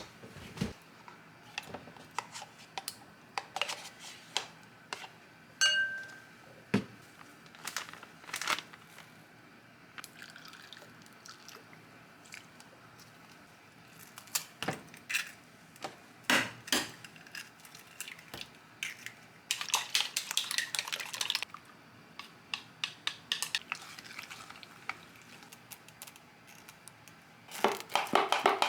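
Scattered knocks, clinks and rustles of household containers and packaging being handled, with a short ringing tone about six seconds in and a longer rustling stretch around twenty seconds in.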